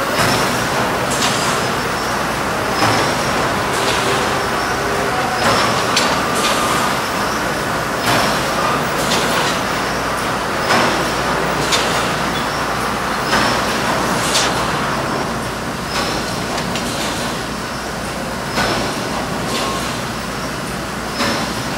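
Mogul tray-handling machine running: a steady mechanical din with a sharp clack about every one and a half seconds as the trays cycle through.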